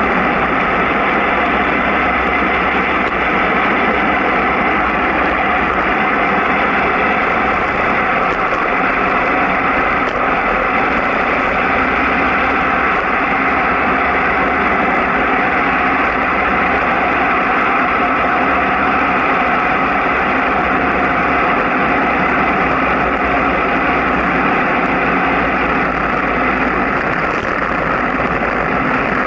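Steady, loud rush of wind and road noise on a moving camera's microphone during a downhill ride at about 35 to 45 km/h, unchanging throughout.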